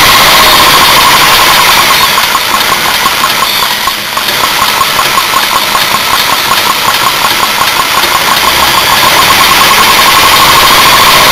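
Old Briggs & Stratton single-cylinder petrol engine running, very loud, with a pulsing whine running through it. It gets somewhat quieter in the middle and picks up again near the end.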